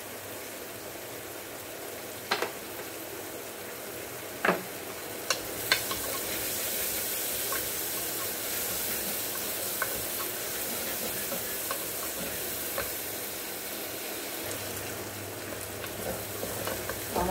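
Chopped onions sizzling as they fry in mustard oil in a pressure-cooker pot, stirred with a wooden spatula; the onions are browning. A few sharp knocks come in the first few seconds, and the sizzle grows a little stronger after that.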